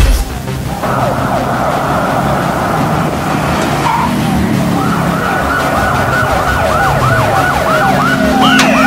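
Electronic escort sirens of a motorcade sounding, switching about five seconds in to a fast yelp that sweeps up and down about three times a second.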